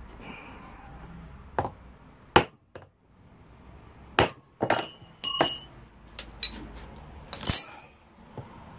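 Hammer blows on the flywheel of a Honda CB250 engine while it is levered from behind, knocking it off without a puller: about six sharp metal strikes, the loudest about two and a half seconds in, with clinks and ringing metal around the middle.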